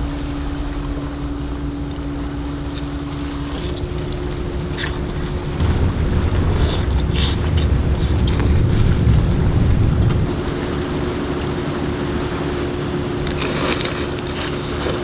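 Steady low hum of a boat's engine, its pitch stepping up slightly about three and a half seconds in, with a heavier rumble in the middle. Crunching and chewing of cooked crab shell break in here and there, thickest near the end.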